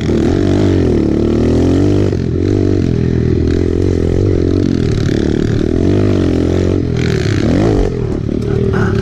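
Kawasaki KLX110 pit bike's small four-stroke single-cylinder engine under way, its pitch rising and falling again and again as the throttle opens and closes. About seven seconds in, a brief rush of noise lies over it.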